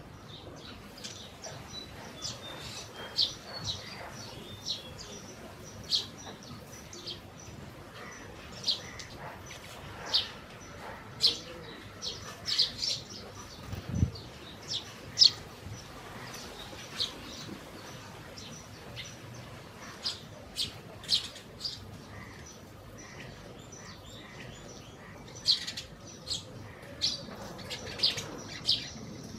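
Sparrows chirping: short, sharp chirps scattered irregularly, thickest in the middle and near the end. A single low thump sounds about halfway through.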